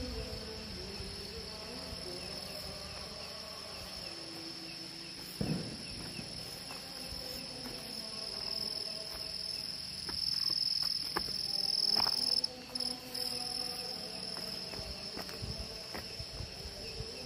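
Night insects chirring in a steady high-pitched drone, swelling about ten seconds in and dipping briefly just after, with a few soft knocks.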